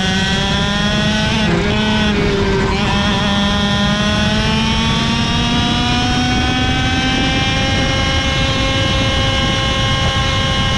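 KZ shifter kart's 125cc two-stroke engine under hard acceleration. Its pitch climbs for the first second or so, dips briefly about one and a half seconds in, then rises slowly and steadily for the rest of the run.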